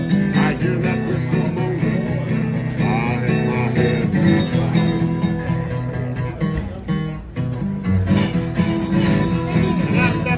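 Acoustic guitar played live, a strummed country tune from a strolling musician at the table.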